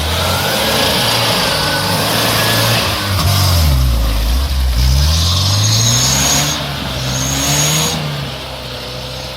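Off-road vehicle engine labouring under load, its pitch dropping and then rising again as it revs, over a loud noisy wash of wheels churning through swamp mud and water.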